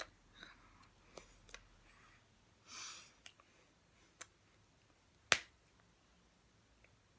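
Hands clapping and fingers tapping together as a person signs in sign language: about five scattered sharp clicks and slaps, the loudest a little past five seconds in, with a short breathy puff near three seconds.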